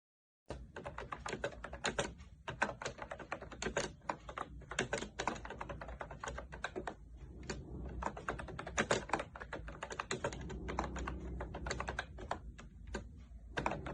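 Typing on a MOFII wireless vintage-style keyboard: a quick, irregular run of key clicks that starts about half a second in and keeps going, with brief pauses between bursts.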